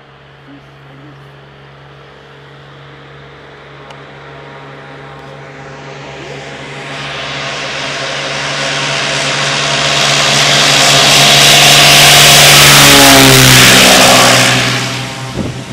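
Air Tractor 502 agricultural plane's turboprop engine and propeller growing steadily louder as it flies in low toward the microphone, a steady engine hum joined by a rising rushing hiss. The pitch drops as it passes about two seconds before the end, and the sound falls away quickly.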